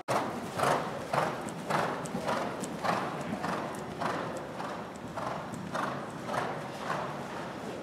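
Hoofbeats of a horse trotting on soft arena footing, an even beat of about two strokes a second.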